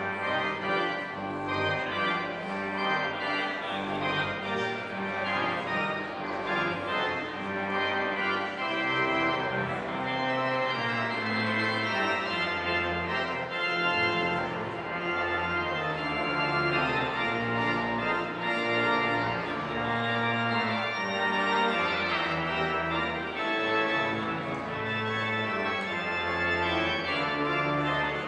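Church organ playing full sustained chords over a slowly moving bass line.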